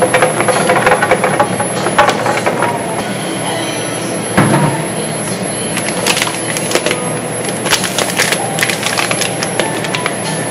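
Tapioca pearls pouring out of a plastic bag and rattling into a stainless-steel bin. About halfway through comes a low thud, followed by scattered crinkling of the plastic bag as it is handled. A steady background hum runs underneath.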